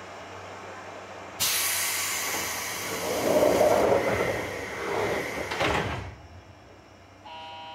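Pneumatic door gear of a JR West Series 201 train: a sudden hiss of compressed air about a second and a half in, then the doors sliding shut, ending in a knock before the hiss dies away about six seconds in. A faint steady tone sets in near the end.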